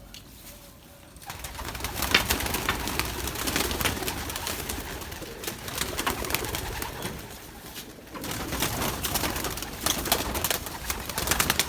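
Domestic pigeons cooing and shuffling about, with a busy clatter of small clicks and scuffs that starts about a second in.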